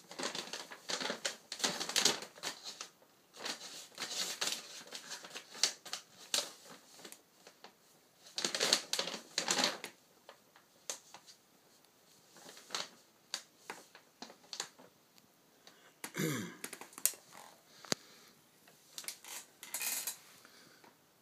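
Kitten scratching and scrabbling inside a pack of photocopy paper: irregular bursts of quick scratchy clicks and rustling, with short pauses between.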